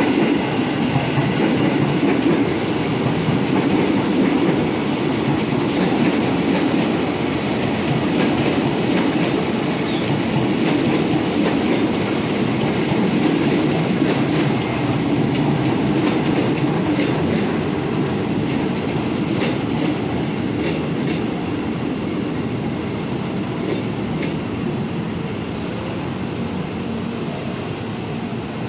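Electric commuter train running through the station platform: a steady rolling rumble of wheels on rail that slowly fades.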